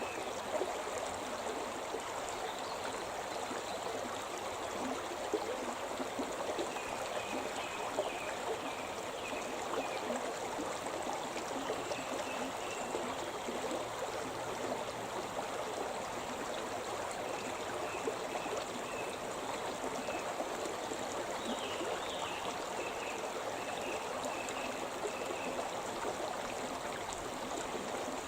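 Shimna River rushing and babbling over rocks in a steady, even flow. Runs of short, high, repeated notes, like a small bird singing, come and go over the water noise.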